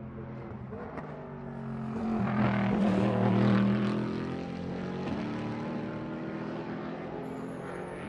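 A GT race car's engine passing at racing speed: the note swells to its loudest a few seconds in, then drops in pitch and fades as the car pulls away, with the next car's engine starting to come up near the end.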